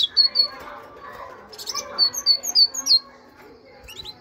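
Great tit singing: a few short high chirps at the start, then about two seconds in a quick run of clear two-note phrases alternating high and low, and two more brief notes near the end.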